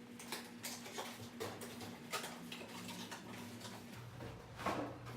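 Scattered light clicks and knocks from handling EGO 56-volt lithium-ion battery packs as they are readied to go into the mower, the loudest knock near the end.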